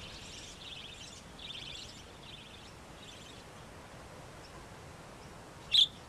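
Budgerigars chattering in short scratchy bursts that fade away over the first few seconds, then one sharp, loud chirp near the end.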